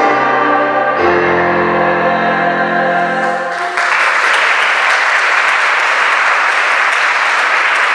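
Mixed church choir with digital piano ends a song on a final chord, with a low bass note entering about a second in and the chord held for a few more seconds. The chord breaks off just before four seconds in and the audience applauds steadily.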